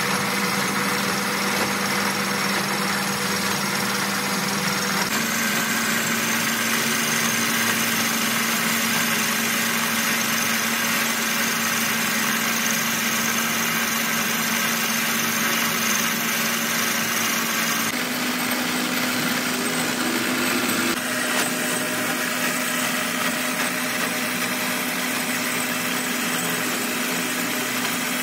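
Metal lathe running with a piston blank spinning in its chuck: a steady mechanical hum of motor and gearing, its tone stepping a few times.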